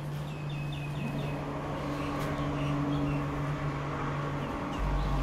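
A bird chirping a quick run of about six short high notes in the first second or so, then a few scattered single chirps, over a steady low hum.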